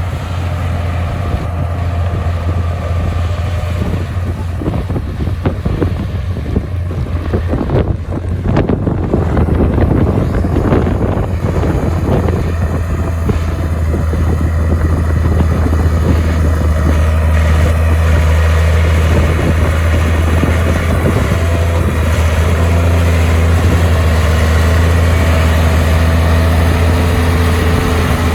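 Bulldozer's heavy diesel engine running loud with a steady low drone, with a stretch of rattling knocks about a third of the way in.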